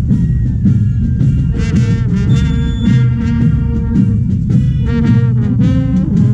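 Brass marching band playing a tune on the march, with trombones and trumpets holding sustained notes over a steady beat.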